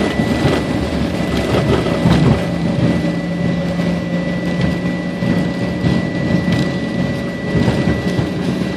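Jet airliner cabin noise while rolling on the ground after landing: a steady rumble of the wheels and airframe with a steady high engine whine, heard from inside the cabin.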